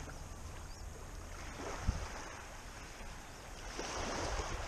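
Small waves washing up onto a sandy beach, the wash swelling twice, over a low rumble of wind on the microphone.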